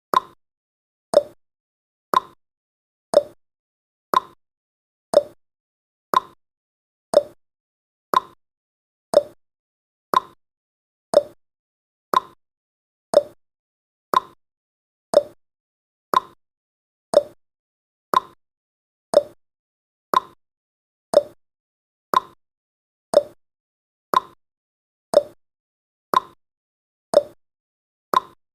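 Countdown timer's ticking sound effect: one short, sharp tick each second, in a steady even rhythm.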